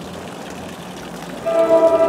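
Approaching NJ Transit commuter train sounding its horn: a loud chord of several notes that starts abruptly about one and a half seconds in, over a low steady background hiss.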